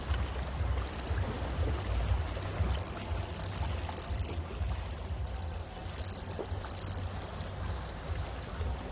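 Fishing reel being cranked in spurts, a rapid high clicking whir, over a low wind rumble on the microphone.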